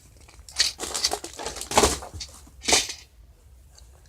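Rustling and crinkling of candy and gift packaging being handled, in a cluster of irregular bursts over the first two seconds and one more short burst near three seconds.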